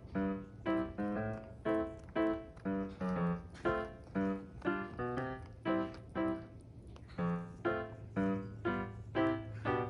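Background piano music: a simple melody of single notes struck about twice a second, each fading away.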